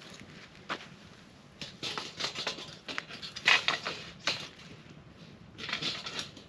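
Metal grill grate being set over a campfire and shifted on the stones of a rock fire ring: scraping and clinking in several short bursts, the loudest about three and a half seconds in.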